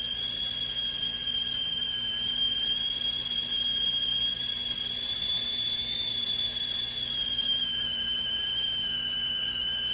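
GGC 3.1-quart stainless steel stovetop kettle whistling at the boil: one steady, high whistle, its pitch rising slightly about midway and then easing back down.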